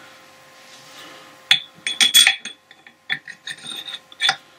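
Steel gears and shaft clicking and clinking against each other and against a Boxford lathe's lead screw gearbox casing as they are fitted back together. It is a run of sharp metallic clicks starting about a second and a half in, thickest just after two seconds.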